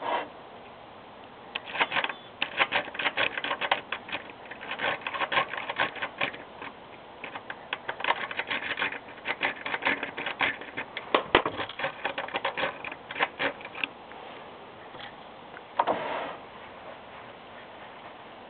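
A jiggler pick being worked in and out of a Medeco cam lock under a tension tool, the pins and pick clicking and rattling in fast, irregular runs of ticks. Near the end comes a single short scrape.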